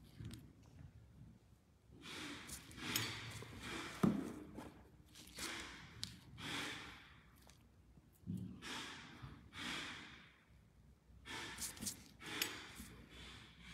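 A person's breathing close to the microphone: soft exhalations of about a second each, coming every second or two, with a light click about four seconds in.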